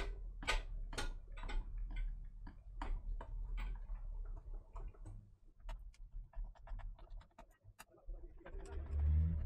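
A coarse-thread screw being driven by hand with a large screwdriver into a Corsair radiator's fan-mounting holes. It clicks and ticks as it turns, about two clicks a second at first and then sparser, as it re-forms threads damaged by the wrong screws. A louder dull rumble of handling comes near the end.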